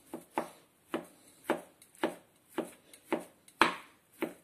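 Chef's knife chopping doktorskaya sausage into small cubes on a plastic cutting board: a steady run of knocks, about two a second, one a little louder past halfway.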